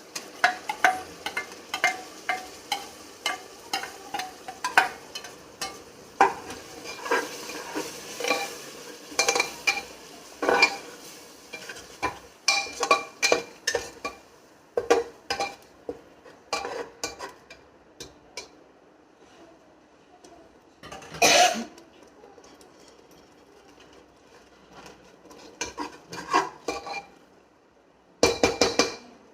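Spoon scraping and knocking against a bowl and cooking pan as ground masala paste is tipped into cooked-down tomatoes and stirred in, in quick repeated strokes that thin out after the first half, with a faint sizzle beneath.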